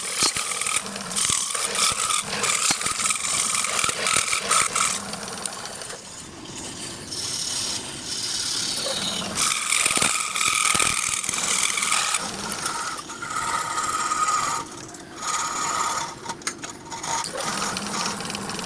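Wood lathe turning a workpiece while a turning tool cuts into the spinning wood: a rough, uneven scraping hiss that comes and goes as the tool is worked.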